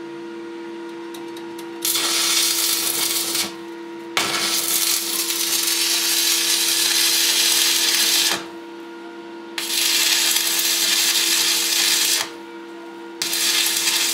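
Manual electrode (stick) arc welding on a broken tractor crankshaft: the arc crackles and hisses in four runs, the longest about four seconds, breaking off for about a second between them. A steady hum lies under it throughout.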